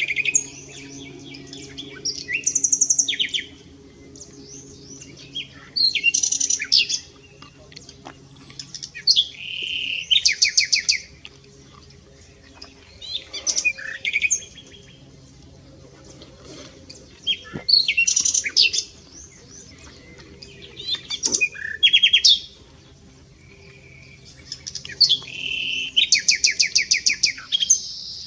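Common nightingale singing: separate phrases every few seconds, each mixing whistles and fast trills of repeated notes, with short pauses between.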